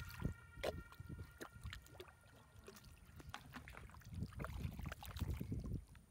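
Wet mud squelching and sucking as booted legs wade through deep, soft tidal mud and a hand digs into it, in irregular low squishes with small wet clicks.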